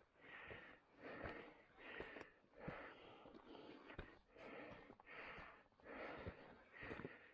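Faint heavy panting from a man climbing a steep rocky slope on foot, a breath about every three-quarters of a second, with a few faint ticks between.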